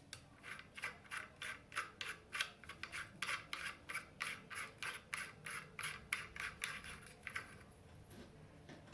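Plastic ring of a lamp holder being twisted off its socket: a quick series of short rasping rubs, about three a second, that fade out near the end.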